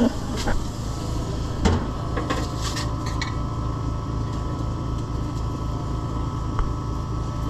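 A steady low machine hum with an even pulse, with a few sharp clicks and one louder knock in the first three seconds.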